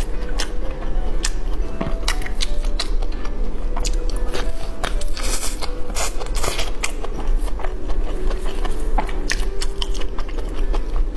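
Close-miked eating: biting and chewing food, with many short sharp mouth clicks throughout, over faint background music.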